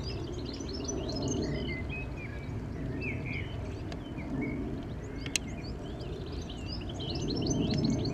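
Small birds chirping and twittering busily, over a steady low outdoor background rumble, with one sharp click about five seconds in.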